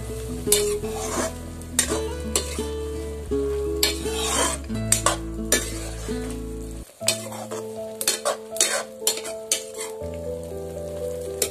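Chopped vegetables sizzling in hot oil in a kadai while a spatula stirs them, with repeated scraping knocks of the spatula against the pan about every half second.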